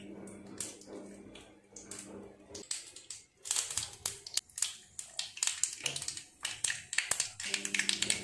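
Mustard seeds popping and crackling in hot oil in a small steel tempering pan. A dense run of sharp pops starts about three seconds in, after a faint steady low hum.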